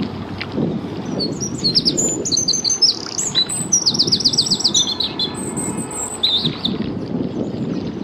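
A small songbird singing close by: a string of high chirps and fast trills from about a second in until near the end, over a low steady rumble.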